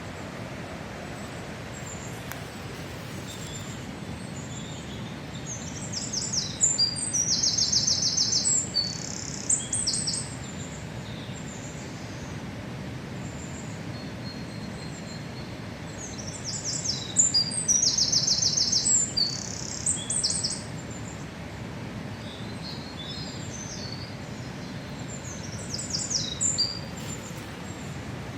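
A songbird singing a fast, high, trilled song phrase three times, about ten seconds apart, over a steady low rushing background noise.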